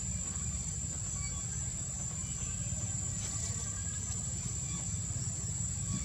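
Outdoor ambience: a steady high-pitched hum with a low rumble underneath, with no clear monkey calls.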